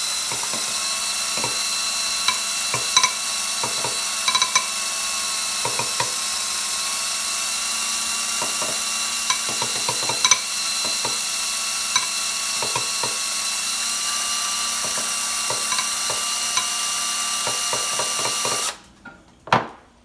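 DeWalt cordless drill running steadily with a spoon in its chuck, whisking eggs in a glass bowl; the spoon clicks against the glass now and then. The motor stops suddenly about a second and a half before the end, followed by a couple of knocks.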